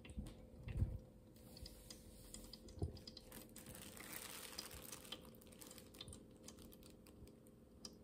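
Faint scattered clicks and rustling, with a couple of soft thumps, from a cat's fur and whiskers brushing against the phone's microphone.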